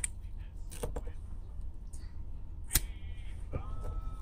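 Light metal clicks as the screw cap of a mini keychain kerosene lighter is worked off, then one sharp click near three seconds in as the lighter is struck and lights. A steady low hum runs underneath.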